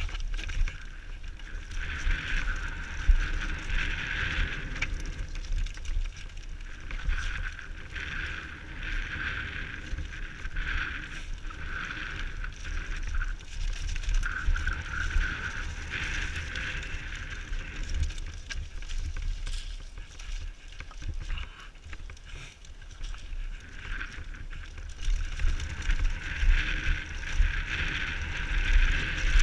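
Downhill mountain bike descending a rough, rocky trail, heard from a helmet camera: wind rumbles on the microphone, with frequent jolts and knocks from the bike over rocks and a high buzz that swells and fades.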